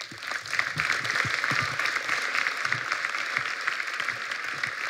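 Audience breaking into steady applause: many hands clapping together.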